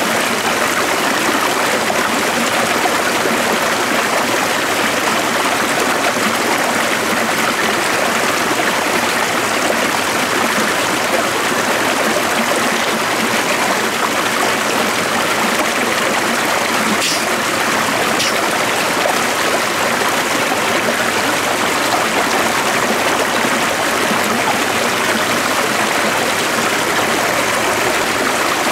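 Stream water flowing steadily, a continuous even rush and trickle.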